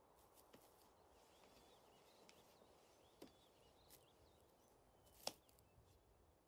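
Near silence: faint outdoor ambience with soft, scattered bird chirps and two brief clicks, the second one louder.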